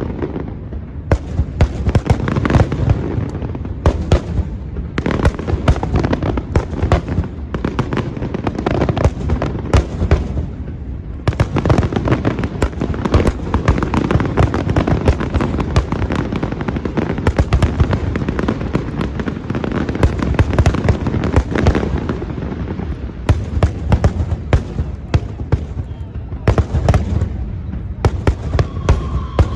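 Fireworks display: a dense, continuous barrage of shell bursts and crackling, with sharp bangs several times a second over a deep rumble. The barrage thins briefly about a third of the way in, then picks up again.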